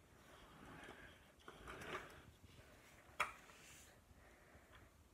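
Near silence with faint handling noise from a Lego brick locomotive being moved by hand on a wooden table, and one sharp plastic click about three seconds in.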